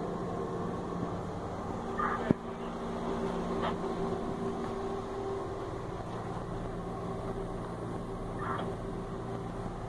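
Diesel-electric locomotive engine idling: a steady hum, heard from inside the cab. A single sharp click about two seconds in.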